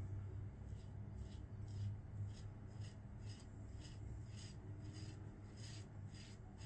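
Faint, short scraping strokes of a Gillette Diplomat safety razor cutting stubble through shave-soap lather, about two strokes a second, over a low steady hum.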